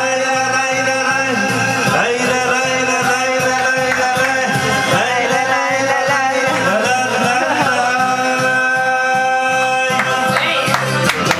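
Karaoke backing track playing through the bar's karaoke system, with a man singing along into a microphone; his voice drops out for the last few seconds while the backing plays on.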